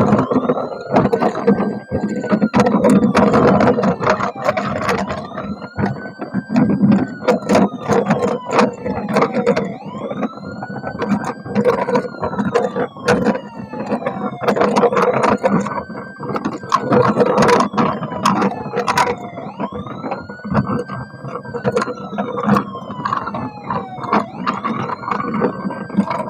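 An electronic toy siren wailing, each wail rising quickly and sliding slowly back down, repeating about every four to five seconds. Under it, plastic toy vehicles clatter and click steadily.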